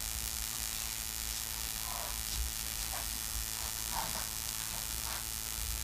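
Steady low electrical mains hum with a background hiss, with a few faint short sounds about two, three, four and five seconds in.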